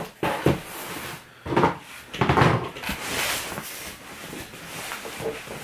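Cardboard box being shifted and handled: irregular scrapes, rustles and knocks.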